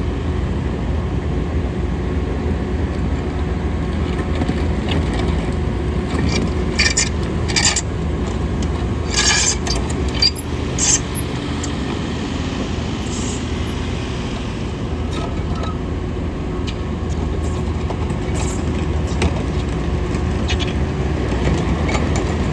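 Case TV380 skid steer loader's diesel engine running steadily, with a cluster of sharp metallic clanks and squeaks about six to eleven seconds in.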